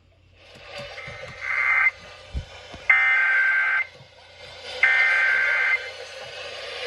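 Emergency Alert System SAME header: three shrill bursts of digital data tones, each about a second long with about a second's gap between them. They encode and open a child abduction emergency alert.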